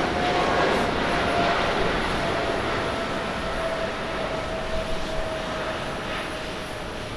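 Twin jet engines of a Japan Airlines Boeing 777-200ER at takeoff thrust as the airliner rotates and lifts off: a steady jet rumble with a whining tone that slowly drops in pitch, the whole sound gradually fading as the aircraft climbs away.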